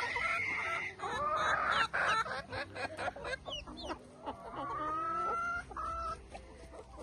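A mixed flock of backyard chickens, silkies among them, clucking and calling in many short overlapping calls, with a few longer drawn-out notes.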